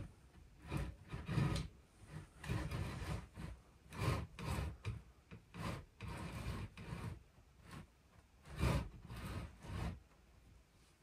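Irregular rubbing and scuffing from someone moving about with a handheld camera, about one or two scrapes a second, stopping shortly before the end.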